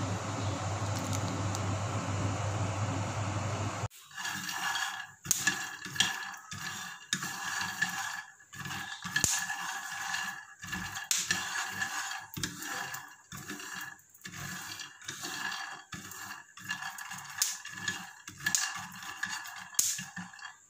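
Raw peanuts being dry-roasted without oil in a frying pan, stirred with a wooden spatula and by hand: the nuts rattle and scrape against the pan in quick, irregular clatters, with a thin steady high tone beneath. Before that, about four seconds of steady low hum, until the sound cuts abruptly to the stirring.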